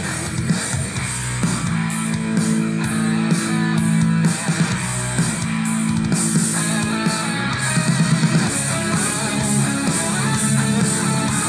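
Rock music with guitar, bass and cymbals played through a Yamada BoomBass portable speaker during a sound test.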